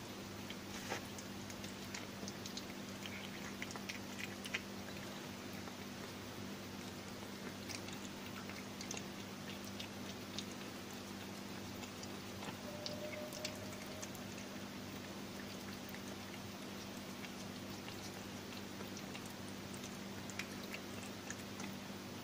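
Cat chewing cabbage from a saucer: soft, irregular wet clicks and smacks of its mouth, over a steady low hum.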